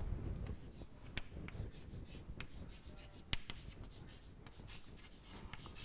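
Chalk writing on a chalkboard: faint, irregular taps and scratches of the chalk as words are written.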